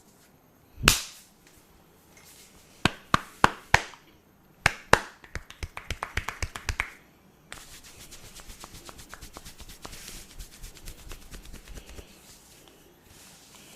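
A barber's hands working percussively in a head massage. One loud slap about a second in, a handful of sharp slaps or snaps, then a fast rhythmic run of strikes, then quicker, lighter even tapping that stops near the end.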